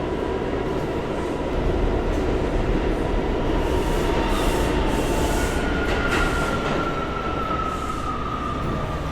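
New York City subway train running, a steady rumble with a thin high tone above it; in the second half a higher tone starts and slowly falls in pitch, and a single clank comes about six seconds in.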